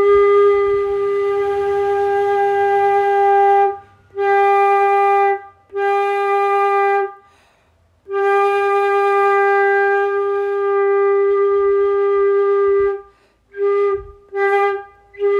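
Concert flute playing the same G, about 390 Hz, as long held notes with short breath breaks, then several short notes near the end. It is blown with open lips and an unfocused embouchure, which gives a hollower tone.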